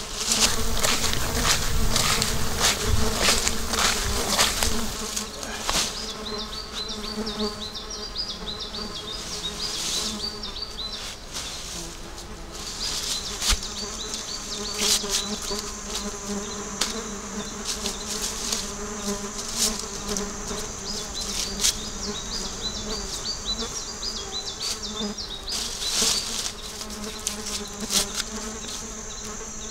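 Insects buzzing steadily close by. For the first few seconds leafy plant stems rustle and crack as they are picked by hand, with occasional leaf rustles later. A high, quickly repeated chirping joins in after about six seconds.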